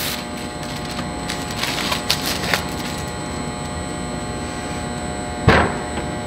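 Protective plastic film rustling and crinkling as it is pulled off the front of a vacuum oven, then the oven door swung shut with a single knock about five and a half seconds in, over a steady background hum.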